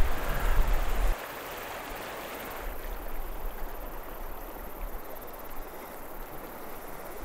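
River water flowing and rippling close to the microphone, as an even rushing hiss. A low rumble for about the first second stops abruptly, leaving the steady water sound.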